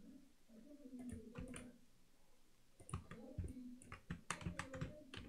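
Faint clicking of a computer keyboard and mouse as Blender shortcuts are pressed: a few clicks about a second in, then a quicker run of clicks from about three seconds in.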